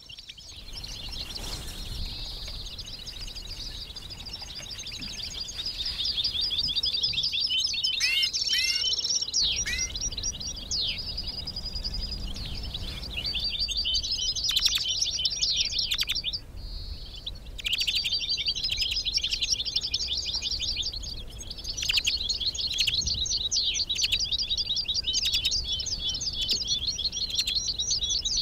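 Finches singing a fast, continuous twittering song, with two short pauses after the middle.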